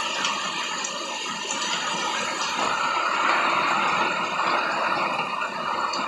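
Heavy rain falling steadily on grass and bushes, an even hiss that grows slightly louder about halfway through.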